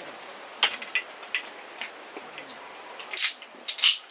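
Aluminium beer can handled on a wooden camp table: a few light clicks and taps, then two short, sharp hissing bursts near the end.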